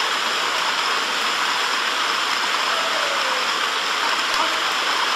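Steady rushing noise of dogs running flat out on wooden-slat treadmills, the slats and rollers turning continuously under their feet.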